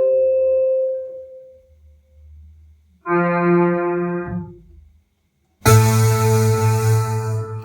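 Electronic keyboard playing its built-in preset sounds one after another. A tone fades out, a held synthetic note sounds about three seconds in, and a brighter, noisier tone starts near six seconds.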